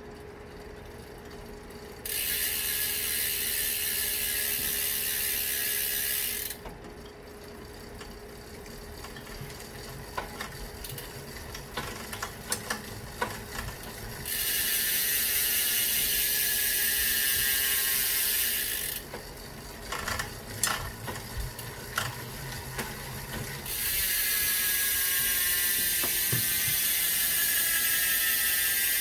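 Bicycle rear freewheel hub ratcheting: the pawls buzz rapidly as the rear wheel spins freely, in three long stretches that start and stop abruptly, with scattered single clicks in between.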